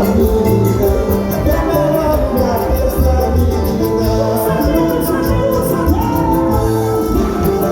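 Latin American music with a steady beat, bass and shaken percussion, with a voice singing over it.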